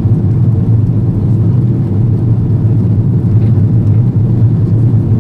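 Cabin noise inside an Airbus A330-200 airliner climbing just after takeoff: the twin turbofan engines and airflow make a loud, steady, low drone that does not change.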